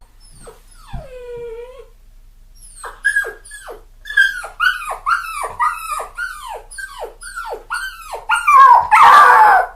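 Puppy whining and yipping in a rapid series of short cries that fall in pitch, with a louder, harsher cry near the end.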